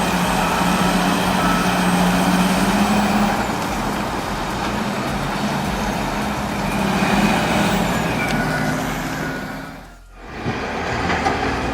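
Heavy diesel machinery engine running steadily, a loud drone with noise over it, cutting off about ten seconds in.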